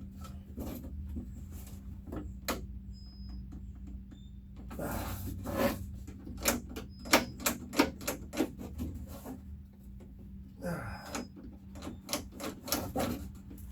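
Irregular metallic clicks and knocks from hand work on the door latch and linkage inside a Jeep Wrangler door, with two longer scraping rattles about five and eleven seconds in. A steady low hum runs underneath.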